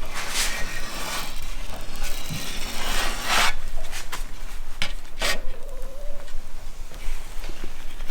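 Hand scraping and rubbing strokes on the surface of sanded carbon-fibre chainplates, irregular, with two longer strokes about half a second and three seconds in and shorter ones around five seconds.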